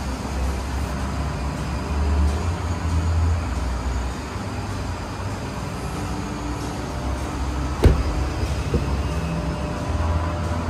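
A low rumble with one sharp click about eight seconds in: the BYD Sealion 7's rear door latch releasing as the rear door is opened.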